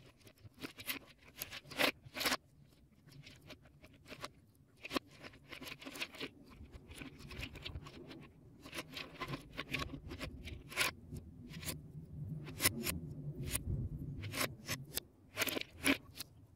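Lego Technic plastic pieces being handled and pressed together: irregular sharp clicks and small rattles of bricks and parts.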